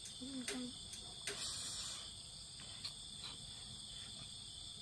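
Steady, high-pitched chirring of an insect chorus, with a few faint clicks and a short rustle about a second and a half in.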